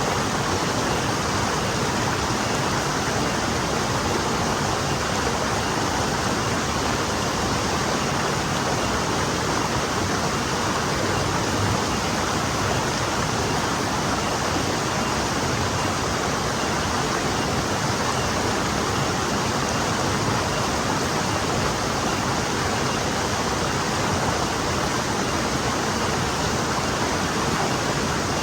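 A stream flowing over rocks, giving a steady, even rush of water with no break or change.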